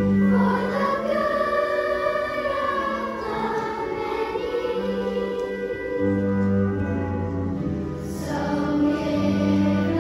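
A large group of elementary-school children singing a song together as a choir, with held low notes of an instrumental accompaniment beneath them, in a school gymnasium.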